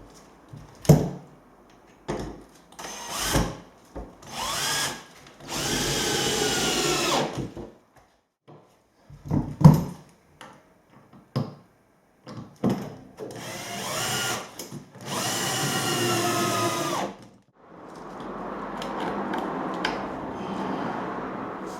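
A power drill-driver running in several short bursts, the two longest about two seconds each with the whine dropping in pitch as each ends, with knocks and clicks between them; a steadier hiss follows near the end.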